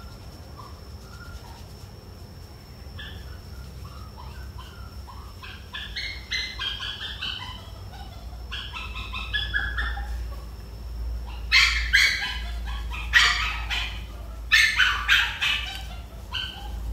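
Animal calls: short, high-pitched calls that start faintly and grow busier, then louder calls in clusters through the second half.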